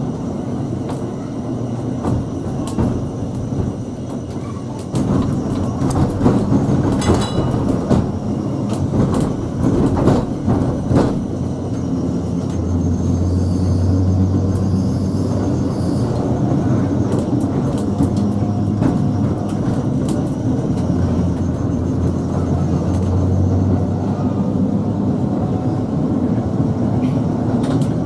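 Sheffield Corporation tramcar 510, a 1950 double-deck electric tram, running along the line as heard from inside its saloon: a steady rumble of wheels on rail, with a cluster of sharp knocks and clicks several seconds in, and a low hum that swells twice.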